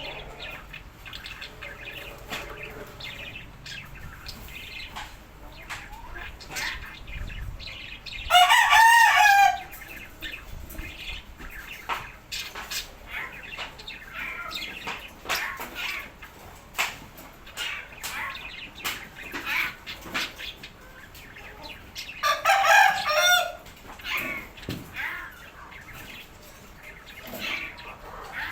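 Bird calls: two loud, drawn-out calls, each about a second long and wavering in pitch, about fourteen seconds apart, with short faint chirps between them.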